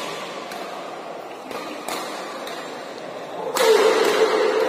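Badminton rally in a large hall: a few sharp shuttlecock hits with rackets, then from about three and a half seconds in a loud, sustained shout and cheering as the point ends.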